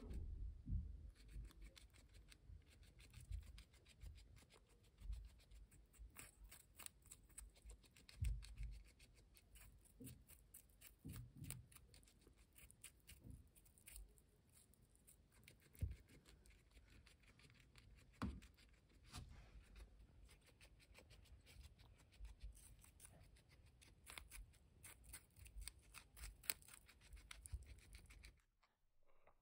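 Guinea pig biting and chewing a piece of raw winter squash held in a hand: faint, rapid crunching and gnawing clicks that stop about a second before the end.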